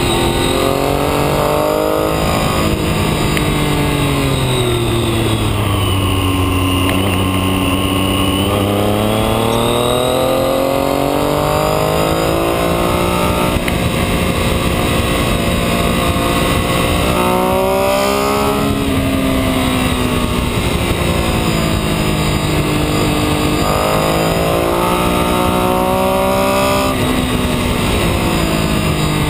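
A motor vehicle's engine running hard through a series of bends, its pitch repeatedly falling as it slows and rising as it accelerates. It is lowest about six to eight seconds in, and climbs sharply twice later on. Steady wind and tyre noise run underneath.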